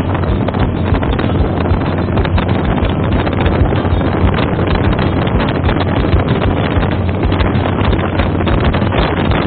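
An outrigger boat's engine drones steadily with a low hum while the boat is under way, and wind buffets the microphone loudly.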